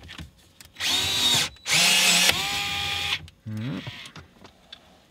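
DeWalt cordless screwdriver with an 8 mm socket bit spinning a screw out counterclockwise. It runs in two bursts of motor whine, a short one about a second in and a longer one right after whose pitch drops partway through.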